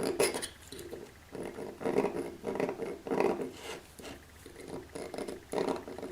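Caliper jaw scribing arcs on the end face of a round bar to find its centre: a series of short scraping strokes, about one every half second.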